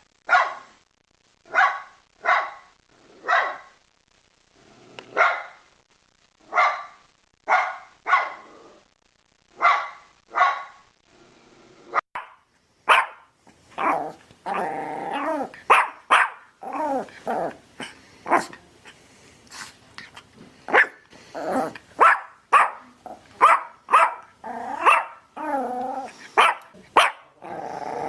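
Dog barking repeatedly, about one bark a second. About twelve seconds in, a different recording takes over, with faster, more varied barks.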